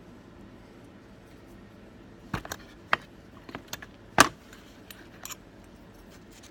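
A run of sharp metallic clicks and clinks, the loudest about four seconds in. They come from the small metal parts of a gutted pin-tumbler lock and the tools being handled.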